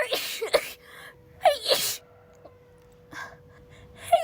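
A woman sneezing in a rapid run, several sneezes with sharp indrawn gasps, packed into the first two seconds. After a short pause, another sneeze starts at the very end.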